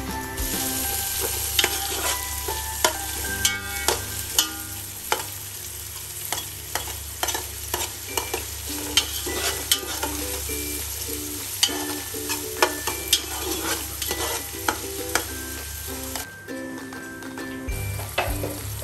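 Diced carrots and green beans sizzling as they fry in oil in a steel pot, while a metal spoon stirs them, scraping and clacking against the pot in irregular sharp clicks.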